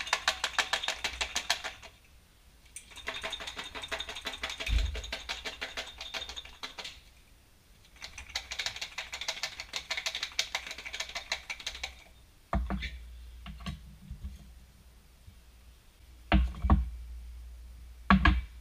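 Garlic cloves rattling fast inside a small lidded jar shaken hard by hand, in three bouts of a few seconds each: shaking to knock the skins off the cloves. Near the end come a few separate knocks and thumps.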